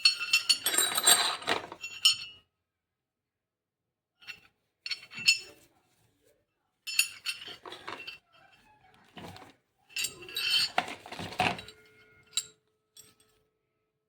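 Hard metal and plastic parts of a rotary hammer kit clinking and rattling as they are handled and unpacked, in several short bursts of clatter with pauses between.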